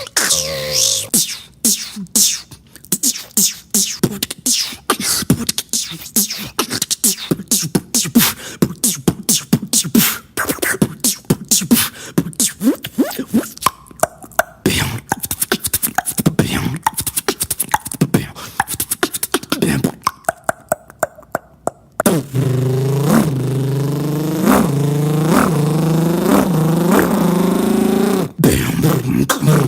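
A beatboxer making sound effects with the mouth and voice. For about the first 22 seconds it is a rapid run of clicks and percussive strokes. Then it changes to a sustained buzzing tone with quick rising sweeps repeating about twice a second.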